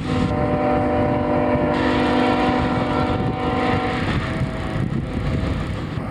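A freight locomotive's air horn sounding one long, steady chord of several notes for about four seconds, over the low rumble of the train rolling along the track.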